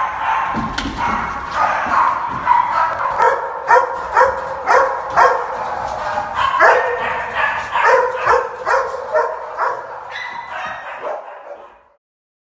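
Many caged dogs in a kennel block barking and yelping together, a continuous overlapping din with sharp barks about twice a second, fading out near the end.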